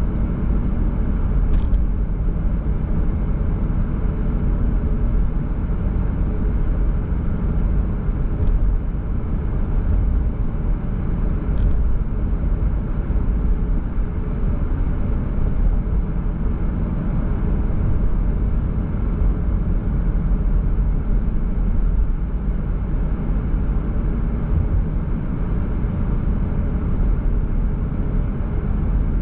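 Steady road noise of a car driving: a low rumble of tyres and engine with wind, and a few faint ticks.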